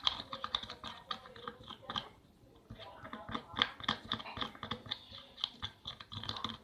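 Thick tapioca-starch and water paste being stirred: a stream of irregular sticky clicks and squelches, with a brief pause a little over two seconds in.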